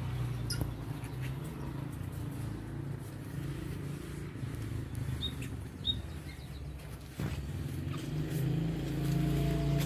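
A steady low engine-like hum runs throughout, with two short, high lovebird chirps about five and six seconds in.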